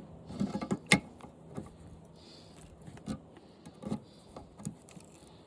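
Irregular clicks and light metallic scraping of pliers bending and peeling aluminium fins up from a window air conditioner's condenser coil, with the sharpest click about a second in.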